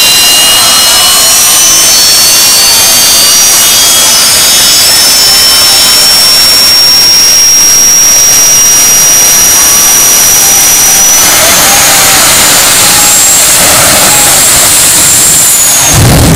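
Jet car's turbine engine running at high power: a loud roar with a high whine that climbs slowly in pitch and steps higher about two-thirds of the way through. Near the end a deeper blast comes in as the afterburner lights with a burst of flame.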